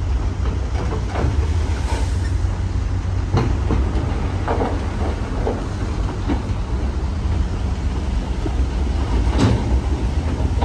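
Heavy earthmoving machinery working rock: a steady deep diesel rumble with scattered metallic clanks and knocks, the sharpest about a third of the way in and again near the end.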